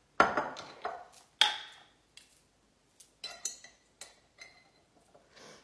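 Knocks and clinks of a glass pickle jar being opened and handled on a kitchen counter. There are two sharp knocks early in the first second and a half, then lighter clinks with a faint ring as pickles are taken out.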